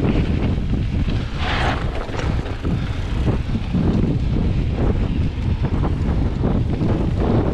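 Wind rushing over the microphone of a mountain bike rolling fast down a dirt singletrack, with steady low rumble and many small knocks from the tyres and bike over the rough trail. A brief hiss about one and a half seconds in.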